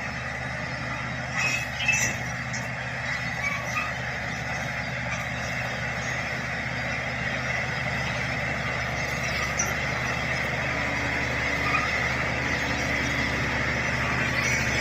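Shantui SD16 bulldozer's diesel engine running steadily, with a few sharp knocks about two seconds in.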